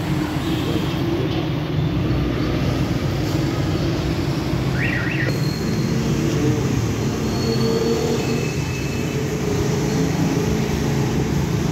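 A steady low rumble with no break, with a brief faint high chirp about five seconds in.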